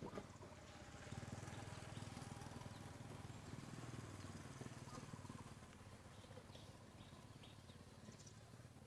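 Faint outdoor ambience: a low rumble that swells about a second in and eases off after about five seconds, with a few faint bird chirps and small clicks.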